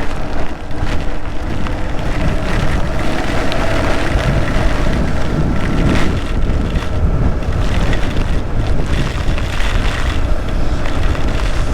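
Wind rushing over the microphone of a Yamaha R15 motorcycle ridden at speed in heavy rain, loud and steady. The bike's single-cylinder engine gives a faint steady tone underneath.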